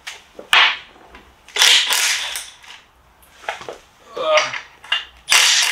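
Socket wrench with an 18 mm socket working the rear axle nut of an electric bike: a sharp click, then several bursts of metal clicking and scraping, the loudest near the end.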